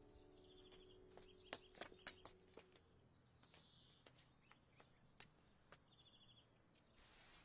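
Near silence: faint outdoor ambience with a couple of faint bird chirps and scattered small clicks, while a held music note fades out in the first few seconds.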